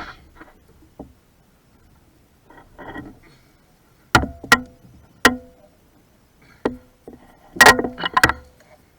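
A handful of sharp knocks and clinks, several leaving a brief ringing tone, starting about four seconds in and bunching together near the end: hard objects being handled and set down during work under the hood.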